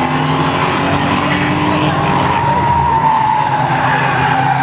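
Several rear-wheel-drive stock car engines running hard as the cars slide through a bend, with a long tyre squeal that starts about two seconds in and slowly falls in pitch.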